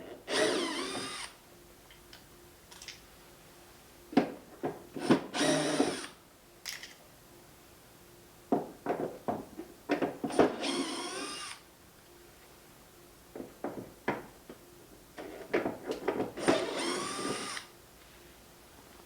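Cordless electric screwdriver running in four short bursts of about a second each, turning screws, with small clicks and knocks of handling between the bursts.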